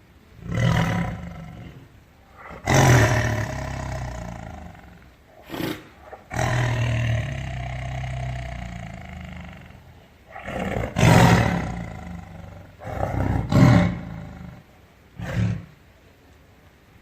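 Tiger roaring in a series of about seven calls, two of them long and drawn out, the rest short.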